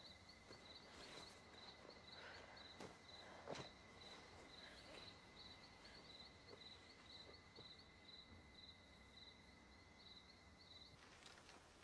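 Faint night-time insect chorus, crickets chirping about three times a second over a steady high trill, which stops about eleven seconds in. A couple of faint soft rustles or knocks a few seconds in.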